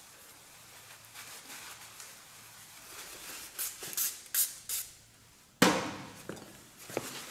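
Four short hissing bursts in quick succession, then a sudden loud thump a little after halfway that dies away, followed by a couple of light knocks.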